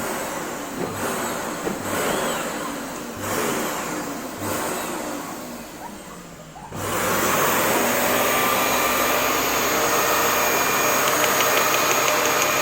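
Vacuum cleaner switched on about halfway through, then running steadily and loudly. Before that, a quieter, uneven noise with a few low knocks about a second apart.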